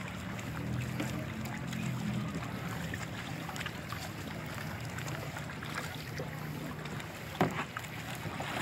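Kayak paddling on calm water: paddle blades dipping and dripping, with small splashes and water lapping at the hull over a steady low hum. A single sharp knock comes about seven and a half seconds in.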